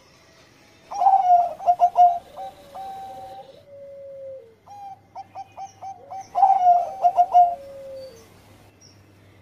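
Zebra dove (Bangkok-type perkutut) singing its 'engkel'-style cooing song twice. Each phrase is a quick run of staccato coos ending in a long falling note.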